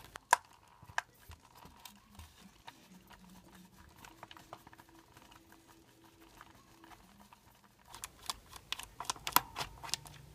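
Small clicks and taps of a precision screwdriver working on screws in an RC truck's chassis: a sharp tap about a third of a second in, another near one second, a few faint ticks, then a busy run of clicking from about eight seconds in.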